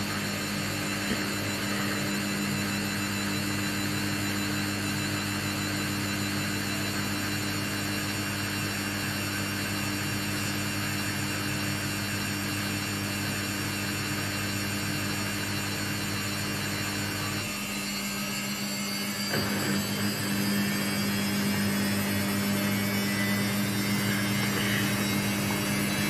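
Samsung Ecobubble 8 kg front-load washing machine on its spin cycle, the drum motor running with a steady hum and whine. About two-thirds of the way through the sound shifts with a small knock, and a higher whine starts climbing slowly in pitch as the spin picks up speed.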